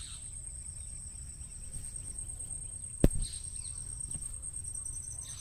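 A steady high-pitched insect whine, with faint parakeet calls in the background. There is one sharp knock about three seconds in.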